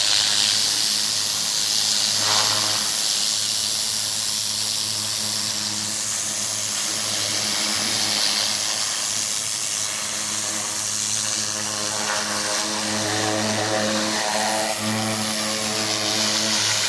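Pressure washer running steadily: high-pressure water spray hissing over the steady hum of its engine.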